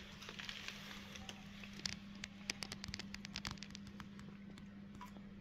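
Cats eating scraps off a plastic bag: quick, irregular clicks of chewing and crinkling plastic, thickest in the middle, over a steady low hum.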